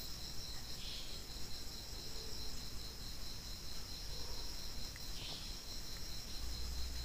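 Night insects trilling steadily at a high pitch.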